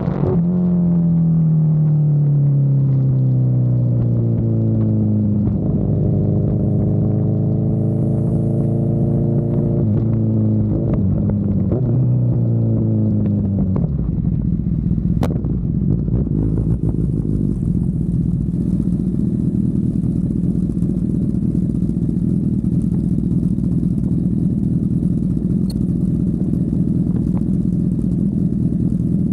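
Honda CB1000R's inline-four engine on the road: its note falls as the bike slows, rises a little, falls again, then settles into a steady idle about halfway through.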